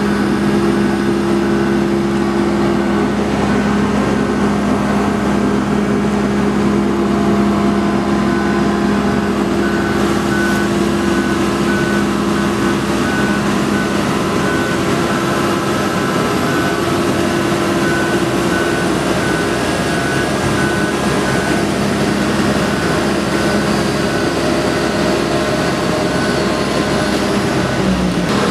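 Mobile boat hoist (travel lift) driving with its engine running at a steady note, while its warning beeper sounds in regular short beeps.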